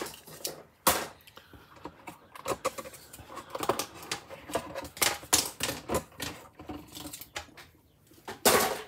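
Plastic spring clamps clicking and clattering as they are pulled off a glued plastic model fuselage and set down: an irregular run of sharp clicks, with a louder knock about a second in and a louder, longer clatter near the end.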